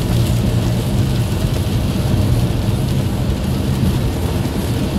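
Steady in-cabin drone of a car driving at about 100 km/h on a flooded motorway, with the hiss of the tyres running through standing water.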